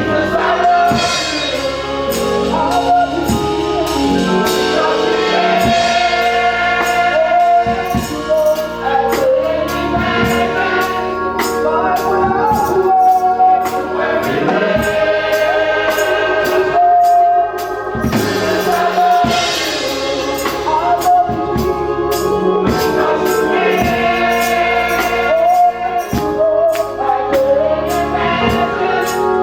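Gospel choir singing with band accompaniment: drums, tambourine and instruments keeping a steady beat.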